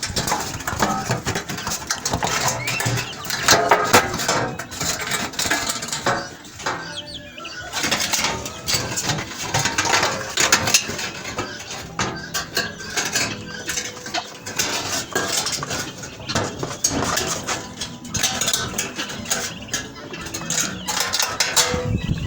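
Irregular clinking and clattering of hard objects: many small knocks in quick succession, coming and going in clusters.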